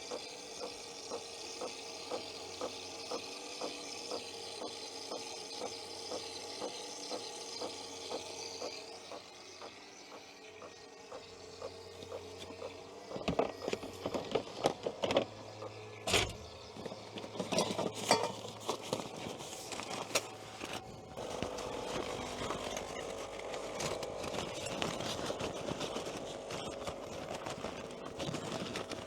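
Pod coffee machine brewing, a steady buzzing hum for about the first nine seconds. Knocks and clicks of handling follow, then a steady hum again over the last several seconds.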